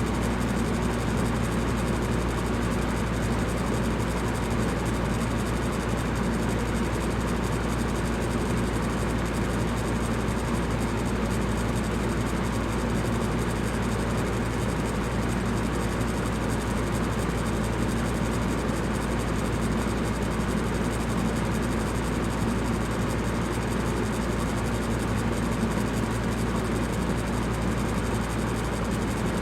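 Electric fan running steadily: a constant whooshing rush of air over a low hum, unchanging throughout.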